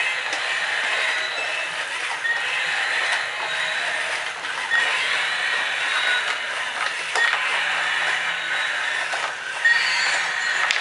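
Battery-powered walking toy dinosaur: its geared motor whirring and clattering steadily as it walks, with short high chirps now and then.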